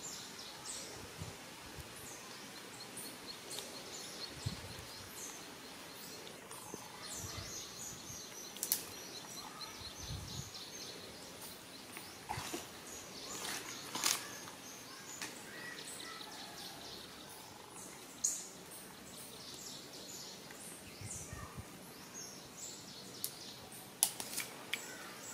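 Outdoor forest ambience with birds chirping: scattered short high calls and, for several seconds early on, a fast run of high repeated notes. A few sharp clicks stand out over the background.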